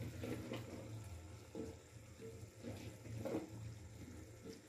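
Raw potato chunks dropped one at a time into a pot of simmering curry, each landing with a soft plop, over the faint bubbling of the liquid and a steady low hum.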